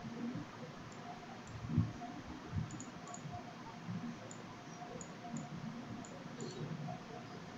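Faint computer mouse clicks over quiet room hiss, with a few soft low knocks, the loudest a little under two seconds in.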